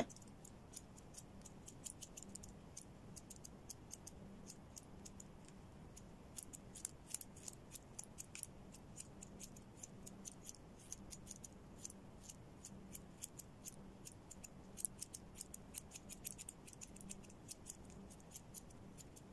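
Grooming scissors snipping through a dog's fur: faint, quick, irregular clicks of the blades closing, sometimes in short runs.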